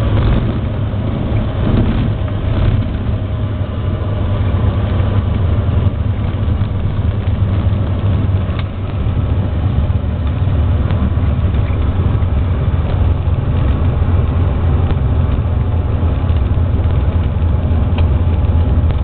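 Cessna 182's piston engine and propeller droning steadily, heard from inside the cockpit during a landing approach.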